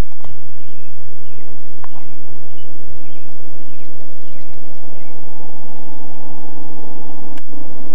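Scattered short bird chirps over a steady low hum and outdoor background noise, with a few sharp clicks, one louder click near the end.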